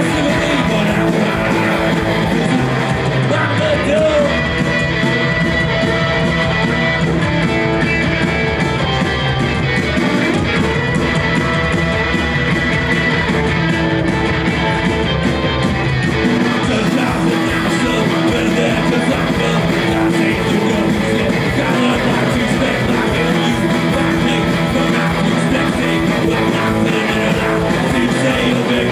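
Punk rock band playing live and loud, with electric guitar to the fore.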